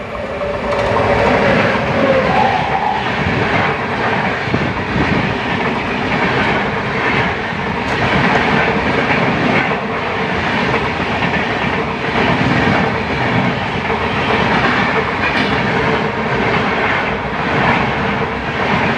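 Indian Railways express train running at speed: a continuous loud rumble of wheels on the track. Two brief steady tones sound in the first three seconds.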